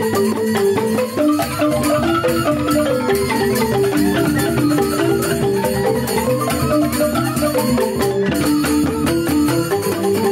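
Joged bumbung gamelan: bamboo xylophones (grantang) playing fast, interlocking melodic patterns without a break, with a bamboo flute (suling) over them.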